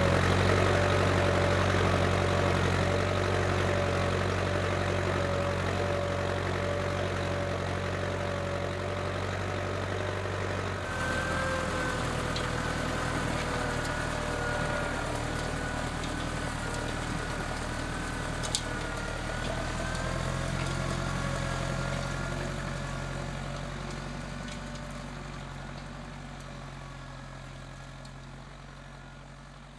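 Case IH 885XL tractor's diesel engine running under steady load, growing steadily fainter as the tractor moves away. Its engine note changes about a third of the way through and shifts again a little past halfway.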